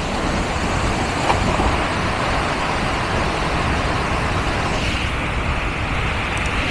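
Steady rushing roar of a waterfall pouring into a natural pool, with a splash about a second in as a person dives into the water.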